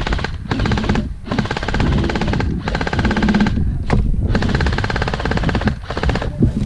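Airsoft gun firing long full-auto bursts close by, a rapid even rattle of shots broken by short pauses about five times.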